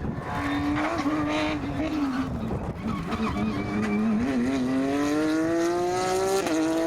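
Rally car engine coming off the throttle for a corner, then accelerating hard with a steadily rising whine. A quick gear change comes near the end.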